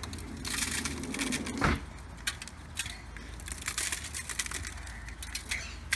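A shaker of garlic salt being shaken over fish fillets on aluminium foil: a dense crackly rattle for about a second and a half, a sharp tap a little under two seconds in, then scattered light ticks.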